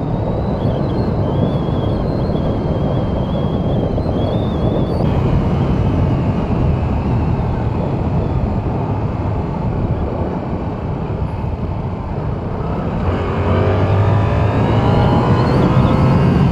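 Yamaha R7's 689 cc parallel-twin engine with stock exhaust, heard from the rider's seat under wind and road noise at a steady cruise. About two-thirds of the way through it revs up and gets louder as the bike accelerates.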